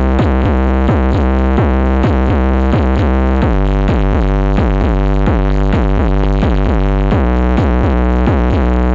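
Loud electronic dance music with heavy bass and a steady, fast, repeating beat, played through a large MA Audio sound system at a cek sound.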